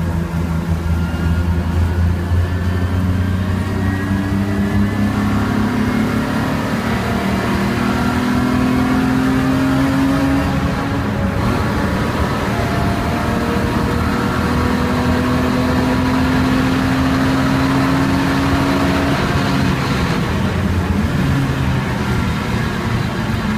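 BMW E36 328i race car's straight-six engine heard from inside the cabin, pulling hard through the gears. Its pitch climbs steadily and drops back at each upshift, then falls away near the end as the car lifts off and brakes.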